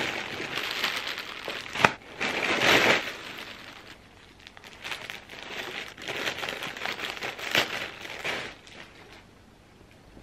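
Plastic packaging crinkling in irregular bursts as a mailer bag and the clear polybag around a garment are handled and opened, with one sharp click about two seconds in; the rustling dies away near the end.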